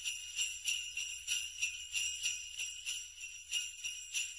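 Sleigh bells jingling in a steady rhythm, about three shakes a second.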